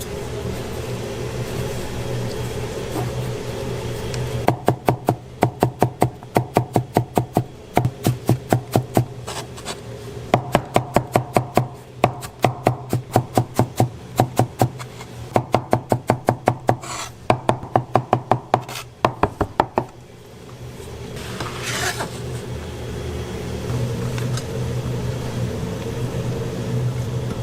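A cooking utensil knocking rapidly and evenly on a pan, about four strikes a second with a slight metallic ring, in several runs broken by short pauses. A steady low hum of a burner or fan runs beneath.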